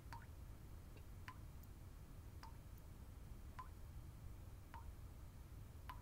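Water dripping steadily, one small drop a little more than once a second, over a faint low hum.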